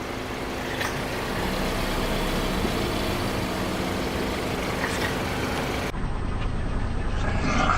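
Car engine running slowly at low revs with tyre noise. A louder, crackly crunch rises near the end.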